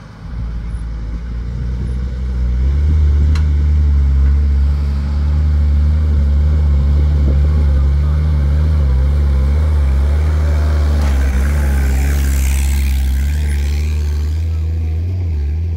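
Toyota Land Cruiser FJ40's stock engine working under load as the 4x4 crawls up a rutted dirt track: a steady low drone that swells about two and a half seconds in and holds. A brief rushing hiss rises over it around twelve seconds in.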